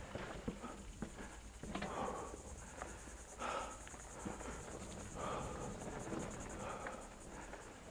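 Mountain bike ridden along a rough dirt trail and over a wooden skinny: irregular knocks and rattles from the bike, with rushes of noise as tyres and leaves brush past. A steady high, fast-pulsing insect buzz lies under it all.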